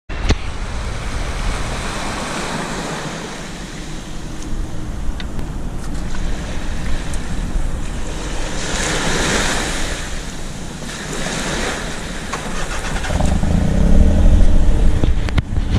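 Small waves washing onto a sandy beach, with a hiss that swells and fades as each wave runs up. Wind buffets the microphone, its low rumble growing louder near the end.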